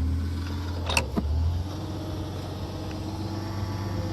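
Engine of a post hole auger machine running steadily, with two sharp knocks about a second in as the auger is pulled up out of the hole; the engine's low drone eases off soon after.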